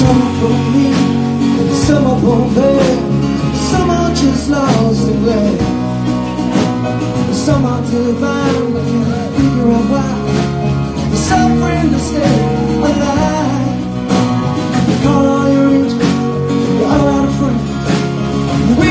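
A live band playing a song: a man singing over acoustic guitar, keyboard, bass and drums.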